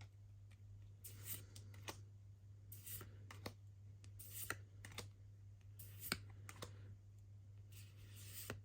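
Faint irregular clicks and soft slides of trading cards being handled and flipped through one by one, over a steady low hum.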